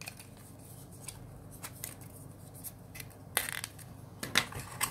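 Hands handling a phone box's small accessory packaging and adapters: quiet rustling with a few short scraping, crinkling clicks, the loudest about three and a half seconds in and again near the end.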